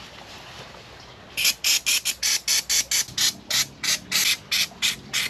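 Aerosol lubricant spray can fired in a quick series of short hissing squirts, about four a second, starting a little over a second in, onto the front suspension bolts.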